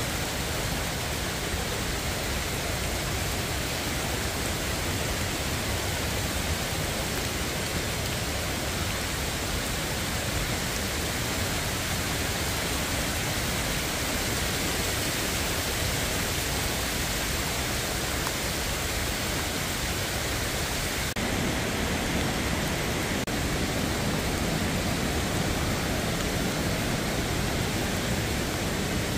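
Steady, even rush of a rocky mountain stream cascading beside the trail, mixed with falling rain.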